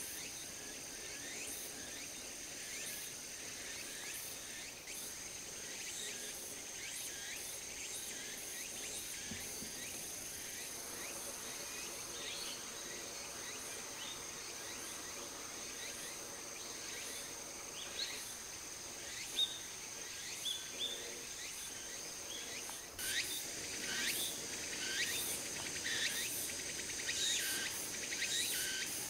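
Insects in a ripe rice paddy singing a steady high-pitched drone, with many short falling chirps over it that grow busier and louder in the last few seconds.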